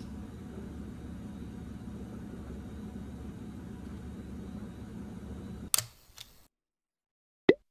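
Steady low room hum, cut off by a sharp click about six seconds in. Then silence, and near the end a single sharp knock, as of a carrot set down on a wooden cutting board.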